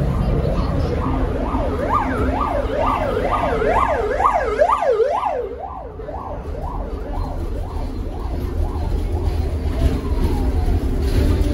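An emergency vehicle's siren wailing up and down about twice a second, growing louder and then fading away, over the low rumble of a Tatra KT4D tram running.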